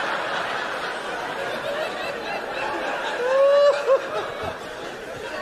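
A theatre audience laughing, the laughter thinning out after about three seconds, when a single voice breaks in briefly.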